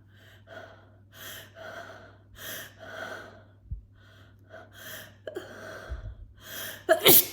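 A woman's hitching, gasping breaths building toward a sneeze, a long run of them about every half second, ending in one loud sneeze near the end.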